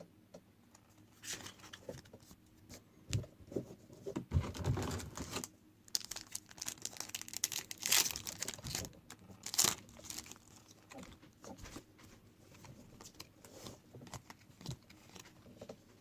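Trading card pack wrappers being torn open and crinkled while cards are handled: irregular rustling and crackling, busiest and loudest between about six and ten seconds in.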